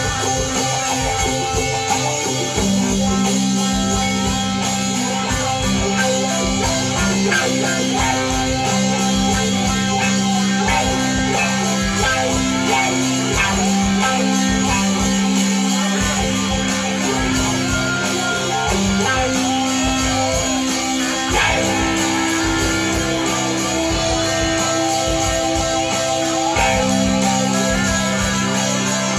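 A live rock band is playing electric guitars over a bass guitar line, with drums keeping the beat.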